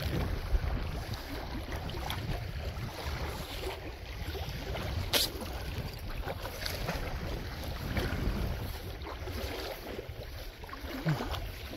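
Wind buffeting the microphone in a steady low rumble, with scattered light ticks and one sharp click about five seconds in.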